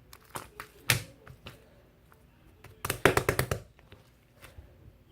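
Light tapping and clicking on a hard surface: a few separate taps in the first second and a half, then a quick run of about eight clicks near the middle.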